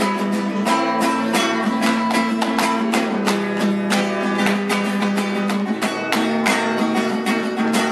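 Nylon-string classical guitar strummed in a steady, quick rhythm: an instrumental passage with no singing.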